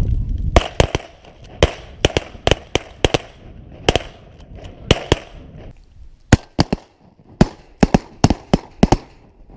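Several shotguns firing a ragged volley of about two dozen shots: a dense run of shots in the first three seconds, a few spaced shots, then another quick run in the last few seconds.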